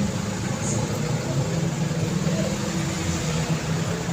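Street traffic: vehicle engines running in a steady low hum over the rumble of passing cars.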